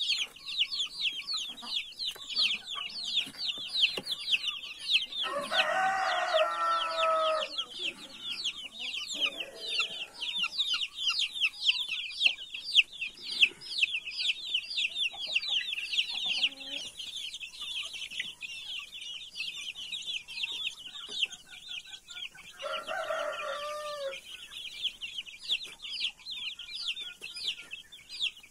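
A flock of month-old chicks peeping nonstop in rapid, high cheeps. Over them a rooster crows twice, once about five seconds in and again, shorter, about eighteen seconds later.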